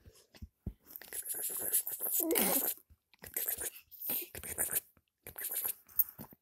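Rustling and scraping of fabric close to the microphone, in irregular bursts, with one short vocal sound that bends in pitch about two and a half seconds in.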